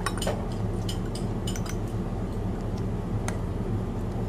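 Metal spoon and fork clinking and scraping against a plate of food as someone eats, sharp light clicks mostly in the first two seconds and once more about three seconds in, over a steady low hum.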